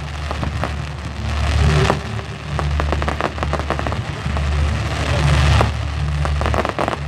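Aerial fireworks display: a dense, continuous crackling of many small pops from gold crackle and glitter effects, sounding rather like heavy rain, over a steady low rumble.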